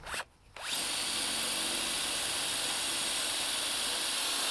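Cordless drill with a twist bit boring through the steel of a bulkhead door frame, spinning up about a second in and then running steadily under load.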